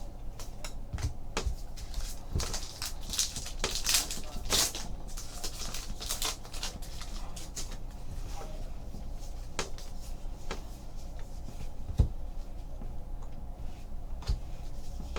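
Trading cards and foil pack wrappers being handled: scattered soft clicks and rustles, with a louder crinkling spell about three to five seconds in, over a steady low hum.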